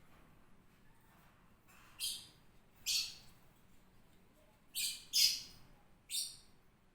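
Lovebird calling: five short, high-pitched chirps spaced about a second apart, two of them in quick succession past the middle.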